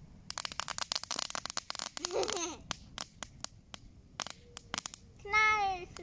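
Plant material thrown onto a campfire crackling and popping: a dense, rapid run of sharp pops for about two seconds, then scattered single pops. A child's voice comes in near the end.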